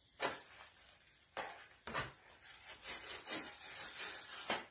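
Cardboard mailer being torn open along its tear strip: a string of short ripping and scraping noises.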